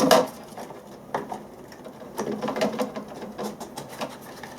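Scattered light clicks and knocks of a small 3D-printed plastic enclosure being handled and pressed into place with adhesive, the loudest knock at the very start.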